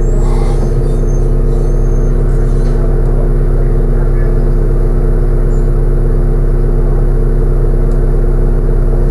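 Steady drone inside a New Routemaster diesel-electric hybrid bus, the engine and drive running with an even, constant hum.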